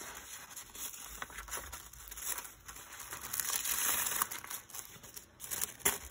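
Sheets of thin lens tissue crinkling and rustling as they are pulled from the booklet and folded by hand, loudest about halfway through.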